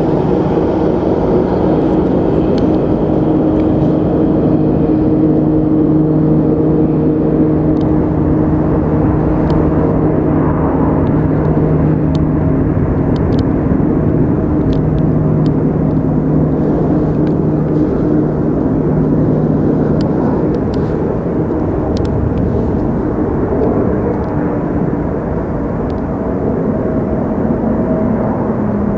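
Two Sikorsky VH-3D Sea King helicopters, Marine One and its decoy, flying in to land. Their rotors and turbine engines make a steady drone with a constant hum that eases off a little near the end.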